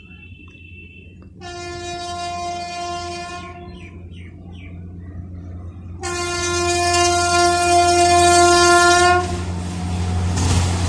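Horn of an approaching Indian Railways WAP7 electric locomotive, sounded twice: a blast of about two seconds, then a louder one of about three seconds. Near the end the running noise of the oncoming train builds up.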